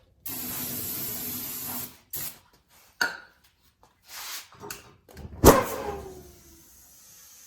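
Aerosol can of bead-seating spray (flammable starting fluid) sprayed into the gap between tire and rim for about two seconds, then a short second spray. About five seconds in comes a sharp bang with a falling metallic ringing: the spray ignites and slams the tire's bead onto the wheel. A faint steady hiss of air follows near the end.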